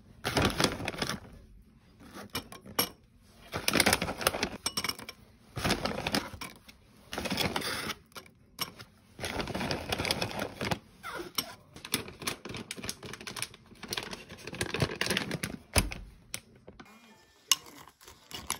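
Chocolate granola clusters crumbled by hand and dropped into a glass bowl of yogurt: a crackly rustle that comes in repeated bursts of a second or two, with clicks of the metal spoon against the glass.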